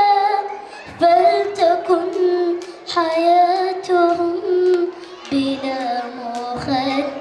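A young girl singing an Arabic song into a microphone, in slow phrases of long held notes with short breaths between them.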